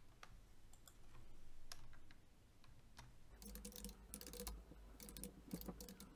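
Faint computer keyboard typing: a few scattered clicks, then a quick run of keystrokes from about halfway through.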